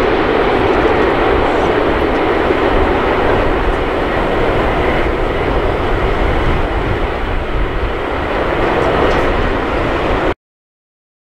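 Jet engine noise of a landing Boeing 747-8 freighter, with its four GEnx engines, as it touches down and rolls out: a loud, steady rush with a deep rumble. It cuts off suddenly near the end.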